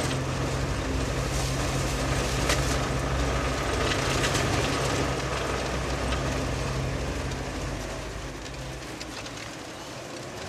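Inside the cab of a UAZ Buchanka van driving over a rough desert dirt track: a steady engine drone with road noise and occasional sharp rattles and knocks from the body. It grows quieter over the last few seconds.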